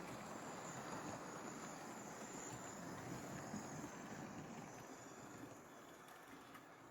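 OO gauge model train running along the track: a steady rumble of wheels on rail with a faint high motor whine, fading away over the last couple of seconds.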